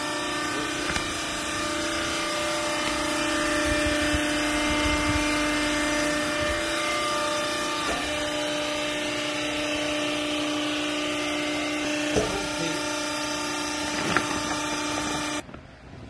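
Hydraulic baler's power unit (electric motor driving the hydraulic pump) running with a steady hum of several held tones, with a couple of light knocks; it cuts off suddenly near the end.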